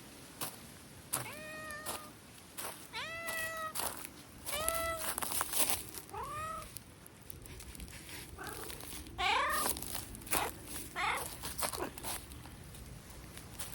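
A small calico cat meowing repeatedly, about half a dozen short meows that rise and then fall, bunched in the first ten seconds, as an excited greeting to a familiar person. Scattered light clicks and rustles sound between the calls.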